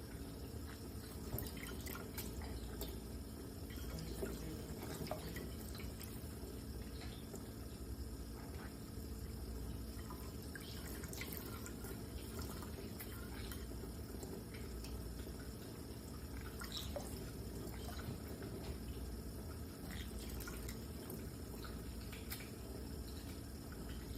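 Water dripping and splashing in a pet conure's bath: many small irregular drips and splashes over a steady low hum.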